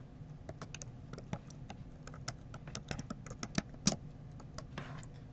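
Computer keyboard keys clicking in an irregular run of keystrokes as a password is typed.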